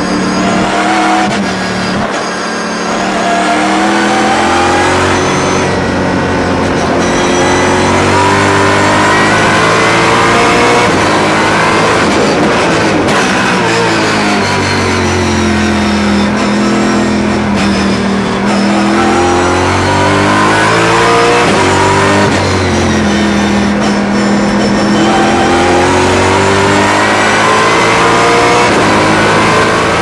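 Mercedes C63 AMG V8 race car at full racing speed, heard from inside the cockpit. The engine note climbs through the revs, drops at each gear change, and falls away under braking before pulling hard again, several times over.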